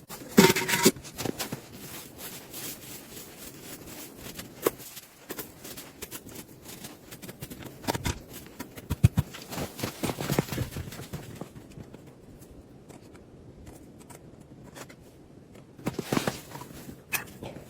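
Irregular rustling, scraping and clicking, with a few louder knocks; it goes quieter for a few seconds past the middle.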